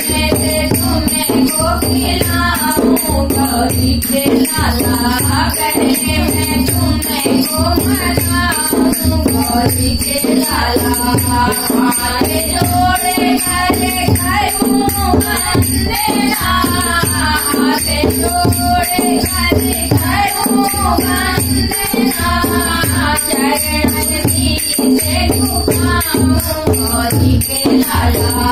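Devotional bhajan music: a dholak hand drum beating a steady rhythm with jingling manjira hand cymbals, under a wavering melodic line.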